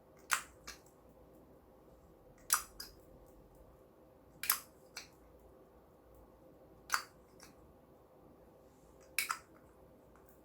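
Slime being pressed and worked by hand, giving a short, sharp crackling pop about every two seconds, five in all, each followed by a smaller one.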